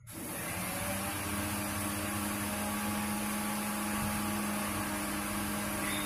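A machine's steady whir with a low hum cuts in suddenly and runs on evenly.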